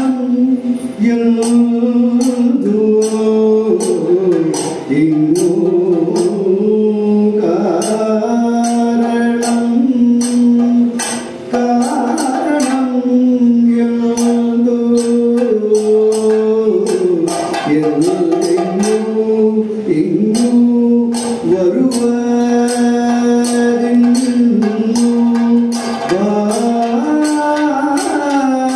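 Indian music: a voice holding long notes that slide up and down, over quick, steady percussion strokes.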